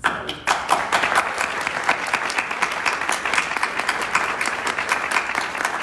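Audience applauding, many people clapping at once, starting suddenly and keeping up at an even level.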